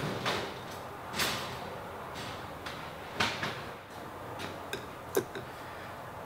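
Scattered knocks and clicks of tools and parts being handled over a steady background hiss, with a sharp knock about five seconds in as a spool of wire is set down on the metal door sill.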